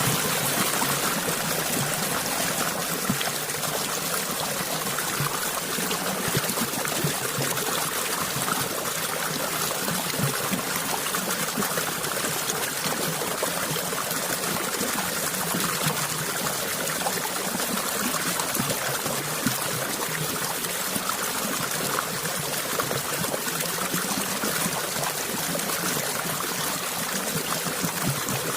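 Water flowing steadily in a small stream, a continuous trickling and splashing that holds an even level throughout.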